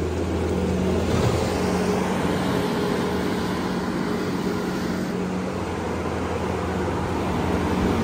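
Case SV340 skid steer loader's diesel engine running steadily as the machine moves about the pen, a constant low hum with no change in pitch.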